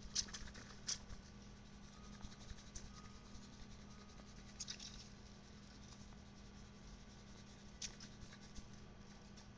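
Faint, scattered ticks and patter from a shaker of garlic powder being shaken over raw chicken thighs on a foil-lined tray, in a few short spurts, over a low steady hum.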